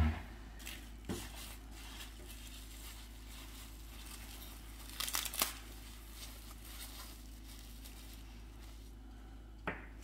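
Clear plastic wrapping crinkling and tearing open as a miniature is unwrapped, with a cluster of sharp crackles about five seconds in. A low thump at the very start, and a light click near the end as a small figure is set down on the table.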